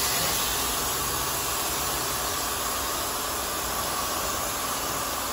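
Pressure washer spraying fresh water onto a boat hull: a steady hiss of the jet.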